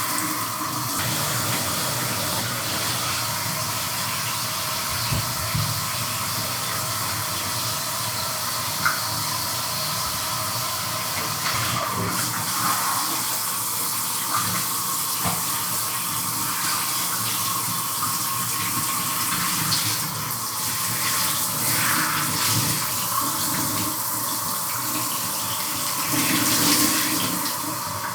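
Shower running: a steady hiss of spray falling, with small swells and brief knocks as the water stream shifts.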